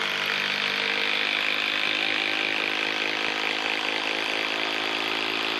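Hilti SID 4-A22 cordless impact driver on its top speed driving a long screw into a wooden log. It runs steadily under load, its impact mechanism hammering throughout.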